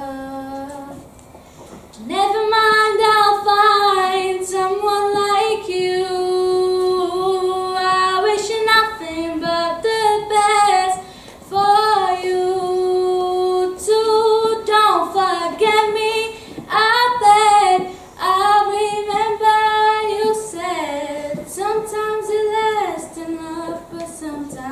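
A young girl singing solo and unaccompanied, a slow melody of long held notes that slide between pitches, starting about two seconds in.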